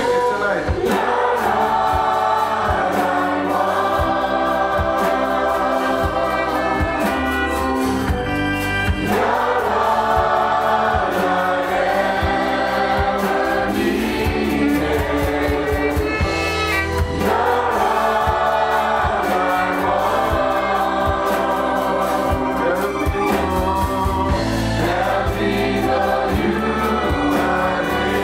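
Church praise team singing a gospel worship song in several voices over band accompaniment with a steady beat.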